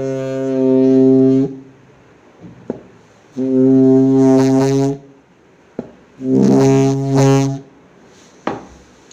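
A stick moved fast through the air, making a loud, low, steady hum like a horn in three spells: the first stops about a second and a half in, the second runs from about three and a half to five seconds, and the third from about six and a half to seven and a half seconds, wavering a little in pitch. A few short knocks come in the gaps.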